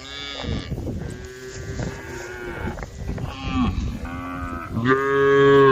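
Several cattle mooing, their calls overlapping one after another, with the loudest and longest moo near the end.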